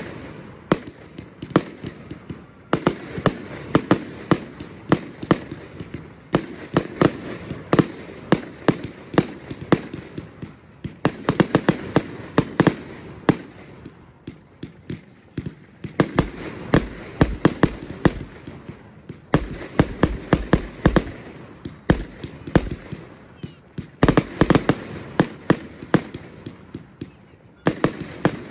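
Aerial fireworks firing in rapid succession: a dense run of sharp bangs from launches and star bursts, thinning out briefly every few seconds between volleys.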